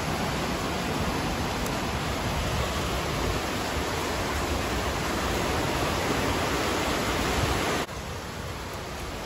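Heavy rain pouring down in a steady, even hiss. It becomes quieter suddenly near the end.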